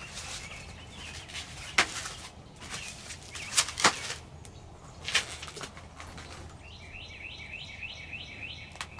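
A few sharp clicks and snaps of packaging pieces being pulled off a new folding e-bike. In the last couple of seconds a bird chirps a quick run of repeated notes, about five a second.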